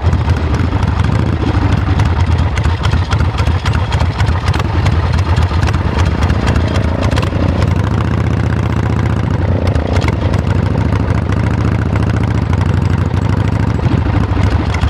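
Motorcycle engine running steadily, with a dense, even run of firing pulses.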